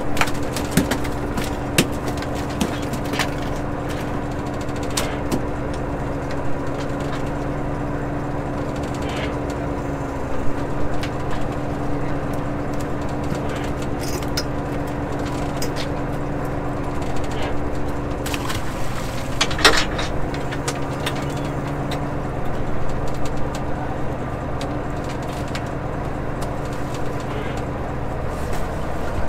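Fishing boat's engine and hydraulic line hauler running with a steady hum while longline gear is hauled aboard. Scattered clicks and knocks of gear sit on top, the loudest about two-thirds of the way in. The hum's pitch sags briefly twice as the load changes.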